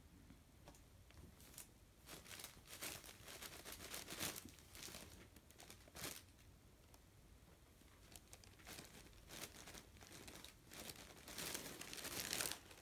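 Plastic crinkling and rustling in two stretches of short bursts as a cat paws at a blanket lying over a plastic sheet, the loudest near the end.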